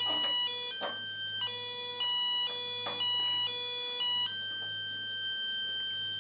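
Menvier TS690 intruder alarm panel sounding its exit tone through a small panel loudspeaker while the system sets. The electronic tone switches between pitches about twice a second, then holds one steady tone from a little past four seconds in.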